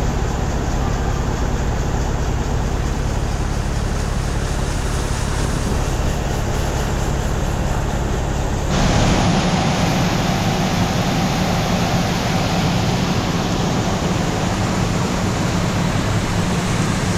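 Combine engine running steadily while unloading grain into a truck. The sound changes abruptly a little past halfway.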